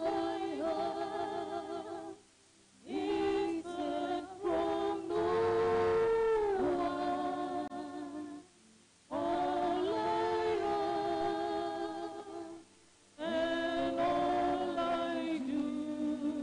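Voices singing a Catholic communion hymn in long held phrases with vibrato, broken by three short pauses for breath.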